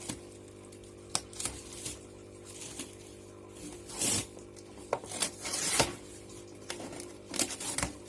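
A cardboard shipping package being opened by hand: scattered sharp clicks and taps, and short rasping tears about four and six seconds in, over a steady low hum.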